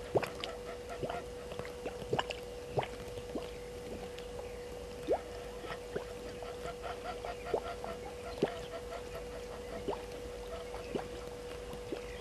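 Waterhole ambience: a steady hum with scattered sharp drip-like plinks, a few a second and loudest near the start.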